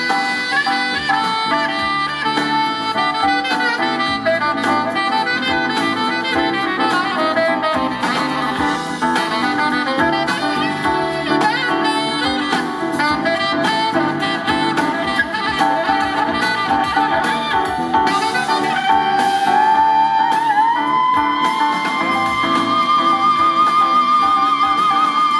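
Live jazz band playing, with a saxophone solo over electric bass and guitar; near the end a long held note with vibrato.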